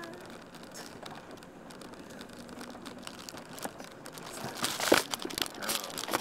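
Rustling, crinkling handling noise rubbing on the camcorder's microphone, loudest about five seconds in, over a low steady background hum.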